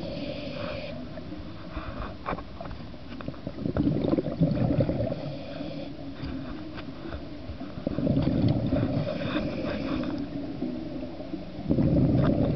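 A scuba diver's regulator breathing underwater: a hiss on each inhale, then bursts of exhaled bubbles gurgling, about three times over a slow breathing rhythm.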